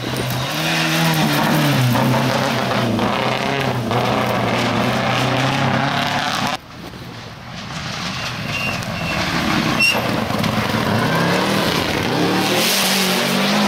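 Rally car engine at full throttle on a gravel stage, its pitch rising and falling through gear changes with a hiss of gravel and tyres. The engine sound drops away suddenly about two-thirds of the way through, then another car comes in, revving higher near the end.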